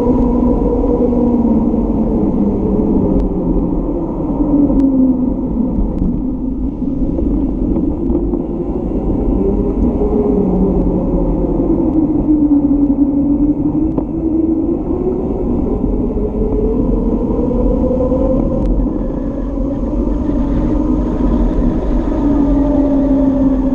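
Wind rushing over the microphone of a camera on a moving bicycle, with the hum of its tyres rolling on asphalt; the hum's pitch rises and falls slowly.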